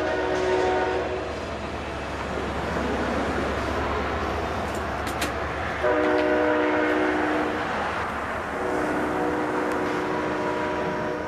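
Amtrak Pacific Surfliner passenger train passing, its locomotive horn sounding a multi-note chord: the blast stops about a second in, the rumble of the passing cars fills the gap, then the horn sounds again briefly about six seconds in and for a longer blast from about eight and a half seconds on.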